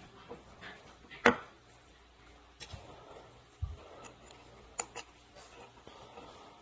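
Clicks and knocks of shower hinge parts being handled as the pivot pin is flipped and the glass plate taken off and refitted. The sharpest click comes about a second in, then a dull thump and a couple of lighter clicks later.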